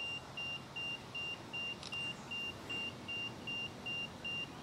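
Handheld EMF meter beeping steadily, short even high-pitched beeps about two and a half a second, its alarm signalling that it is picking up a field. A single faint click about two seconds in.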